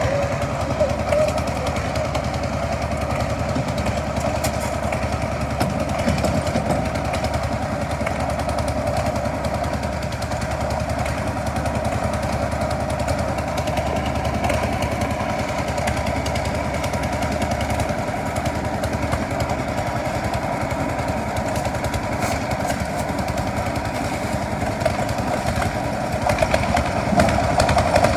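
Drum concrete mixer running steadily, its engine and turning drum making a constant mechanical noise that does not change.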